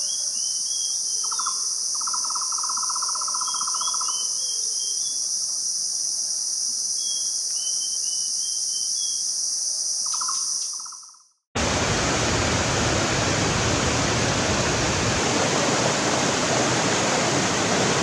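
Steady high-pitched insect drone in forest, with a small bird's short twittering phrases three times and two bursts of a lower, rapid pulsing trill. After about eleven seconds it cuts out and gives way to the even rush of stream water over rocks.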